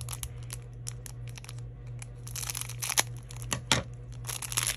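Small plastic bead bag crinkling and rustling as a pair of metal earrings is worked out of it, with scattered light clicks.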